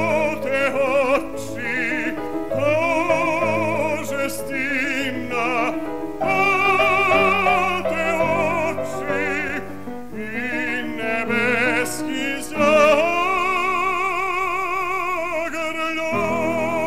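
Male classical singer holding long notes with wide vibrato in an operatic style, over instrumental accompaniment; the voice stops near the end while the accompaniment goes on.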